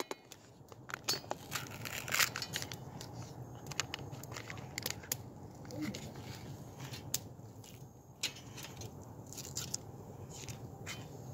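A chef's knife cutting a wrapped block of butter on a wire grill rack: irregular clicks, crinkles and scrapes of blade, wrapper and rack, over a low steady hum.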